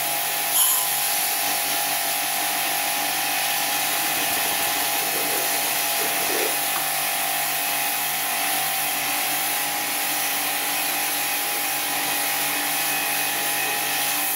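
StarQ W3 electric pressure washer running steadily, its motor and pump humming while the high-pressure water jet hisses against a car door panel. One brief louder click about half a second in.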